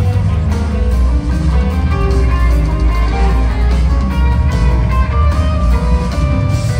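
Live rock band playing, heard from the crowd: guitar lines over a heavy, loud bass.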